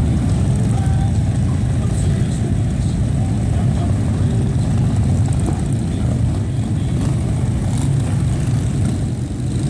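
A group of large touring motorcycles idling and rolling off at low speed, a steady low engine rumble.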